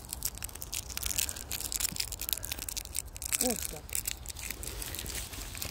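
Quick, irregular crunching and scraping in sandy soil, as hands dig a hole beside the gravestone. A brief voiced hum comes about three and a half seconds in.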